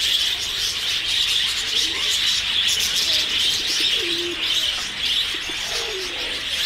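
Dense, steady chatter of many small birds chirping, with a few low cooing calls about four and six seconds in.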